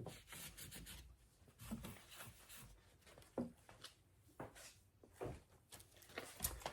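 Faint handling noises on a car's plastic door-mirror housing with the cap removed: soft rubbing of a rag and a few light clicks and taps.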